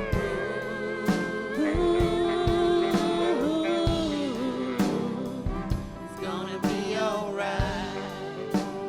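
Live band playing a reggae song: long, held sung notes that slide in pitch, over a steady drum beat and guitar.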